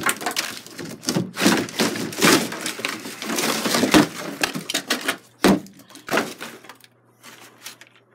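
Hammer blows breaking up a tiled bathroom wall: irregular cracking strikes with crumbling and clattering debris, thinning out to a few softer knocks near the end.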